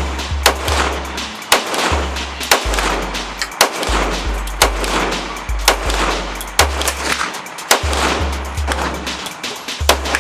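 A string of pistol shots at an uneven pace, about a dozen sharp cracks, from an FN Five-seven firing 5.7x28 mm rounds, over music with a deep stepping bass line.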